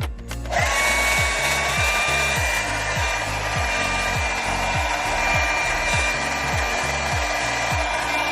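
Handheld hair dryer switched on about half a second in, then running steadily with a rushing airflow and a steady motor whine.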